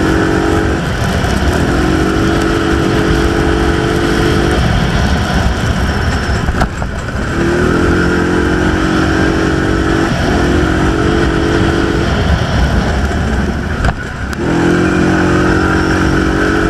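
ATV engine running at a steady pitch while riding along a dirt trail at about 50 km/h, over a constant low rumble. The steady engine note drops away and returns three or four times.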